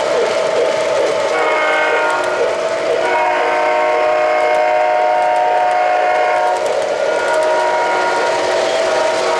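O-gauge model freight train rolling steadily along three-rail track, while the locomotive's onboard sound system blows a multi-note chime signal: a shorter blast about a second in, a longer one from about three to six and a half seconds, and a fainter one near the end.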